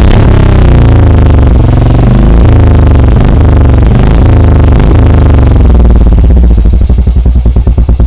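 Royal Enfield Bullet 350's single-cylinder engine breathing through a chrome Red Rooster aftermarket silencer, loud, revved up and down several times, then dropping at about six and a half seconds to a steady idle thump of about nine or ten beats a second.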